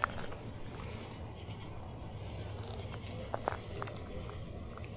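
Crickets chirring steadily in a high, unbroken band, over a low steady hum, with a few faint clicks.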